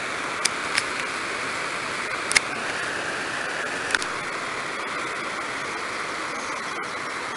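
Steady rushing roar of tsunami surf breaking on the reef and washing over the flooded shore, with a few sharp clicks over it, the loudest about two and a half seconds in.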